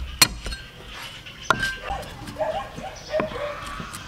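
Steel cleaver chopping garlic on a thick wooden chopping board: three sharp knocks, the second and third more than a second apart, with lighter taps between.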